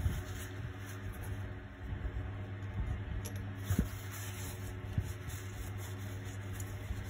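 Paper tissue rustling and soft handling knocks as a plastic model figure is wiped down, over a steady low electrical hum.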